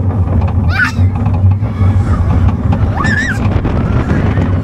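Wind buffeting the microphone over the heavy, steady rumble of an amusement ride car in motion. Two brief rising squeals cut through it, about a second in and again about three seconds in.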